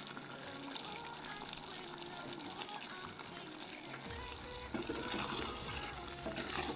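Soft background music over faint liquid sounds from a pot of chicken stew.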